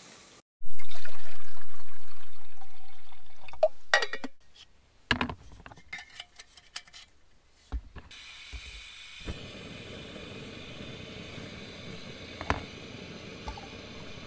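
Water poured into a Jetboil cooking cup, then a few clicks and knocks, then the steady hiss of the Jetboil gas stove burner running from about eight seconds in.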